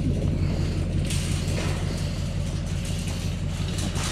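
Steady low hum of an idling truck engine, with intermittent clicking and rattling of the steel wire trap panels.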